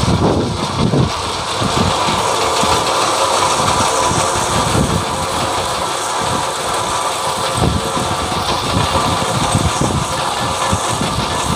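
Tipper truck's diesel engine running while stone aggregate slides off its raised bed, a steady rushing rattle of falling stones over the engine.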